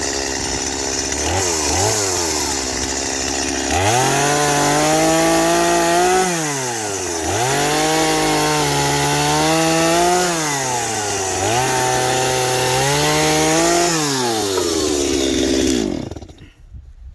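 Chainsaw engine idling, then revved to full throttle three times, each held for two to three seconds before dropping back, as firewood logs are cut; the engine stops near the end.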